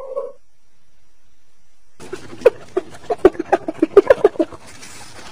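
Spotted hyena call ending just after the start, then, after a short pause, a fast run of short high giggling calls, about four or five a second, from about two seconds in.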